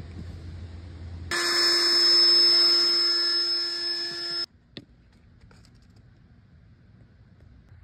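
A loud, steady buzzing tone made of several fixed pitches, about three seconds long, starting and stopping abruptly, followed by a single click.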